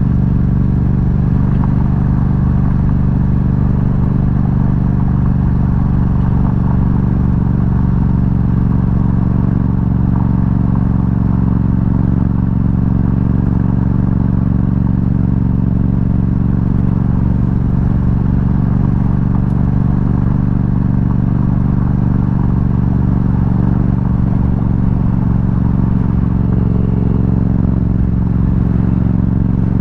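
Yamaha MT-07 motorcycle's parallel-twin engine, fitted with an Akrapovic exhaust, running at a steady speed as the bike is ridden along a dirt road.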